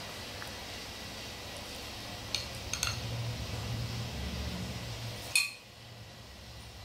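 Steel spoon clinking against a bowl while salsa is served: a few light clinks about two and a half seconds in, a low handling rumble, then one sharper clink a little after five seconds.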